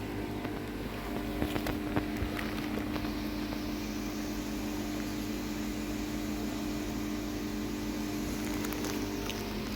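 Steady mechanical hum of koi pond pumps and aeration, with an even hiss over it and a few light clicks in the first couple of seconds.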